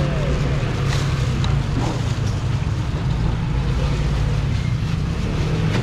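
A machine running with a steady low hum, with a few faint clicks of handling over it.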